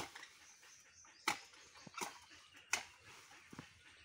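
A hoe's metal blade chopping into dry leaves and soil, four or five sharp strikes about three-quarters of a second apart.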